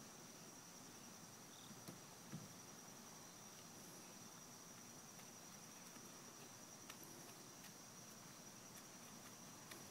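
Near silence: faint outdoor ambience with a steady high-pitched insect hum, and a few faint soft ticks.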